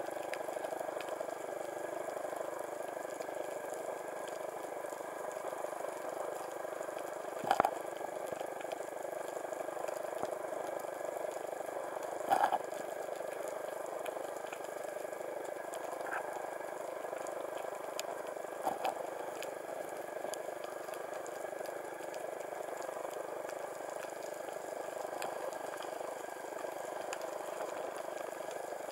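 Underwater ambience picked up through a camera's housing: a steady hiss with faint scattered clicks. There are three louder short crunches or knocks, a little under a third of the way in, near the middle and about two-thirds of the way in.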